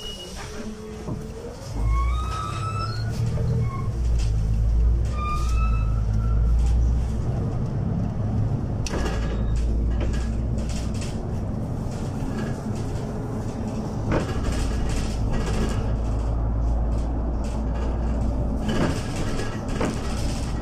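City bus pulling away from a stop. The engine rumble comes in strongly about two seconds in, with a rising whine as it gathers speed, then runs steadily under way with occasional knocks and rattles.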